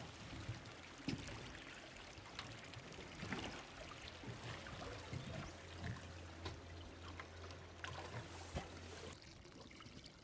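Water lapping and splashing against the side of a small boat, with scattered small clicks and knocks and a low steady hum that stops about nine seconds in.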